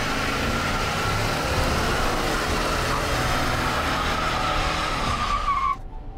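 Stock 2020 GMC Sierra 1500's 5.3-litre V8 running hard in a burnout, the rear tyres spinning with a steady high tyre squeal over the engine. The sound cuts off suddenly near the end.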